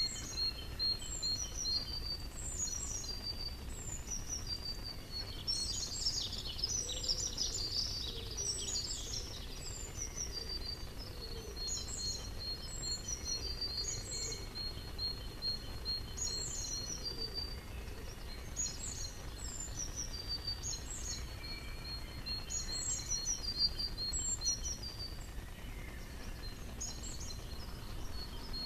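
Songbirds singing: short phrases of high notes falling in pitch, each ending in a fast trill, repeated every second or two, over a steady low background rumble.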